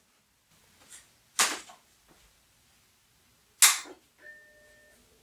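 Two sharp clicks as the Macintosh Plus is switched on, then its single startup beep, a steady electronic tone of about three-quarters of a second. A faint low hum from the powered-up machine follows.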